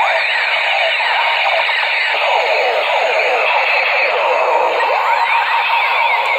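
Battery-powered toy guns' electronic sound effects going off together: a dense, continuous jumble of overlapping rising and falling electronic tones.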